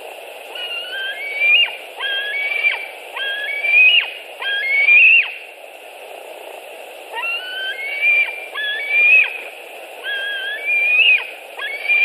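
Juvenile white-tailed eagle calling: repeated phrases of high, thin notes that climb in pitch and end in a sharp drop, each about a second long, with a pause of a second or two near the middle. A steady low hiss runs underneath.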